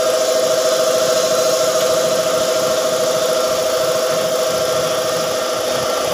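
A motor running steadily with a constant hum and an even hiss over it.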